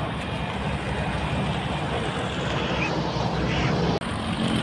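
Wind buffeting a handheld camera's microphone: a steady rushing rumble with no clear pitch, which dips briefly about four seconds in.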